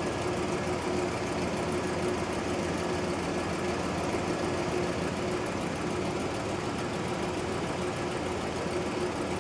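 1977 GMC motorhome's V8 engine idling steadily, with the dash air-conditioning compressor engaged and turning while the system takes a refrigerant recharge. A constant low hum runs under the engine sound.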